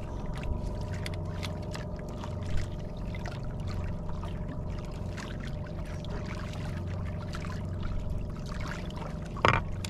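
Seawater sloshing and trickling against an outrigger boat, over a steady low hum, with one short sharp knock near the end.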